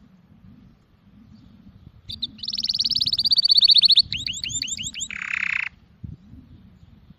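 A small songbird singing one phrase: a fast high trill, then a quick run of about six downward-slurred whistled notes, ending in a short harsh buzz.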